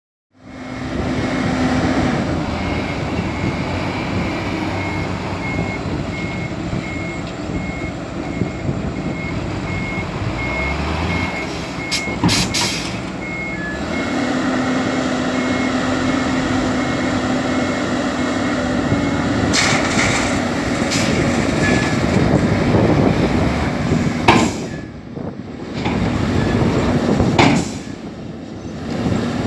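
Heavy machinery at work: a Caterpillar 320D excavator's diesel engine runs steadily while a reversing alarm beeps at an even pace, stopping a little past halfway. A few sharp knocks come through the engine noise in the second half.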